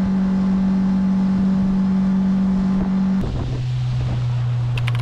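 Outboard motor of an inflatable boat running steadily under way, then throttled back to a lower, steady pitch about three seconds in. A few sharp clicks come near the end.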